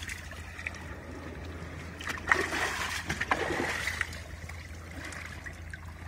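Shallow seawater lapping and trickling against rocks at the water's edge, with two small splashes about two and three seconds in.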